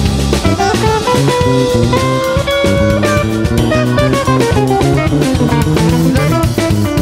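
Instrumental passage of a blues-rock song: electric guitar playing over a drum kit and bass, no singing.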